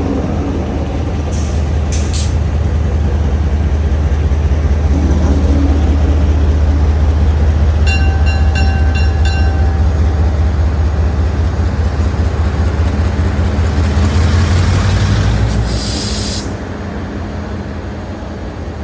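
Taiwan Railway R100-class diesel-electric locomotive R112 running during shunting, a loud steady low engine drone that eases off near the end. Short hisses of released brake air come near the start and again shortly before the engine drops, and a rapid pulsing beep sounds for about a second and a half midway.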